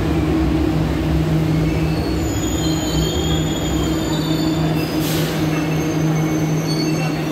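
Alstom Metropolis Serie 100 subway train braking to a stop at a platform. A steady low hum runs under thin, high-pitched wheel squeals that start about two seconds in, with a short hiss about five seconds in.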